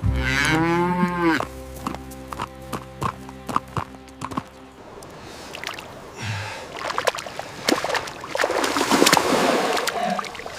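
A cow mooing once at the start, a single long call that rises and falls in pitch, lasting about a second and a half. Steady background music runs under it for the first half, and a stretch of rough noise follows in the second half.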